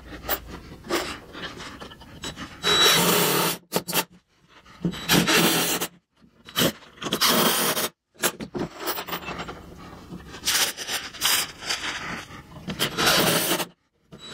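Cordless impact driver sinking 2.5-inch pocket-hole screws into glued-up 2x6 boards. It runs in bursts of about a second, one screw at a time, with short pauses between.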